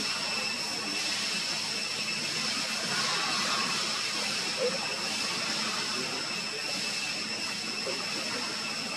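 Steady high-pitched drone of forest insects, two even tones held over a background hiss, with one brief faint squeak about halfway through.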